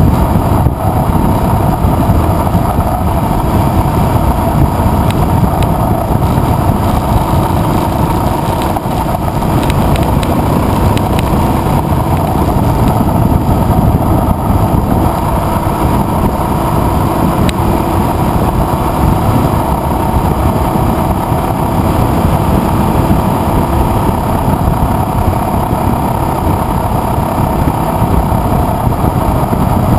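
Adventure motorcycle riding steadily along a gravel road at cruising speed, engine running under a constant rush of wind on the bike-mounted microphone.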